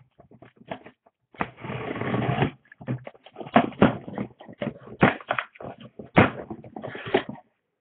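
A cardboard shipping case being handled and opened by hand: about a second of scraping rustle, then a run of sharp knocks and clicks of hands and the box against the cardboard and the table.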